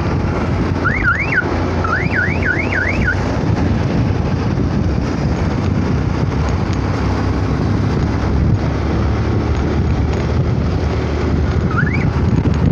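Wind buffeting and motorcycle engine and road noise while riding at highway speed. About a second in, an electronic siren-style horn sounds a quick series of rising whoops, twice and then four times, with one more whoop near the end.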